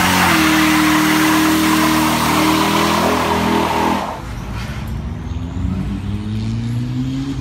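Chevrolet Tahoe V8 held at high revs in a burnout, its rear tires spinning and screeching on asphalt. About four seconds in, the tire screech stops suddenly and the engine note drops, then the revs climb again as the truck pulls away.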